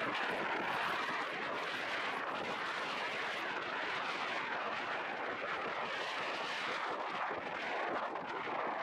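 Steady rushing of wind and sea aboard a sailboat under way, an even hiss with no distinct knocks or tones.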